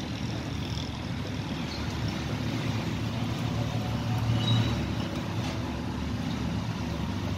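Steady low rumble of background noise, with no sharp events standing out.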